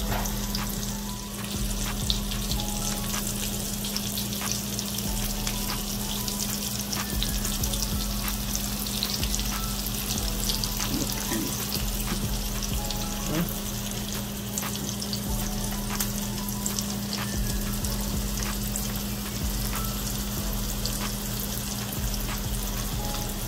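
Flour-dusted corned beef patties shallow-frying in hot oil in a skillet: steady sizzling with many small pops and crackles, over a steady low hum.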